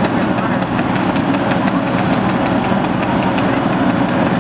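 Fire engine's diesel engine running steadily while it pumps water to a hose line, a low drone with a fast ticking clatter on top, about five ticks a second.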